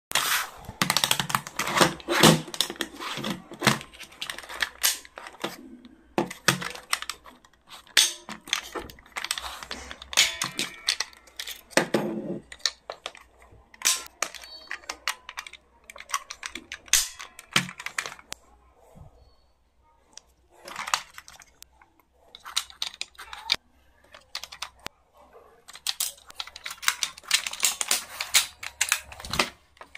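Plastic clicks and snaps from a multi-button pencil case as its buttons are pressed and its spring-loaded drawers and lids pop open and are pushed shut. The clicks come in quick irregular clusters, with a couple of short pauses about two-thirds of the way in.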